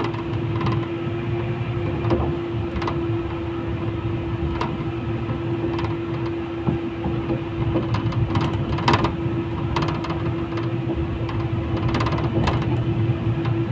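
Inside a 71-911EM low-floor tram: a steady electrical hum at one pitch over a low rumble, with scattered irregular clicks and knocks.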